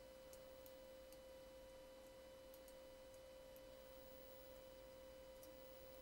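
Near silence: the recording's background carries a faint, steady electrical whine, with a few faint, very short ticks scattered through it.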